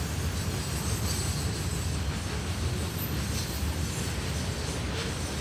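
Train running, a steady low rumble with no breaks or distinct clacks.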